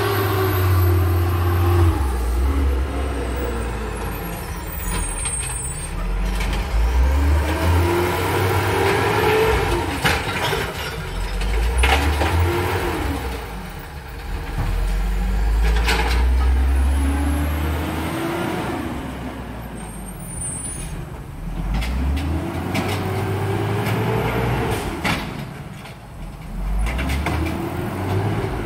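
Natural-gas garbage truck's engine revving up and down again and again as the truck lifts and empties recycling bins, with several sharp noises in between.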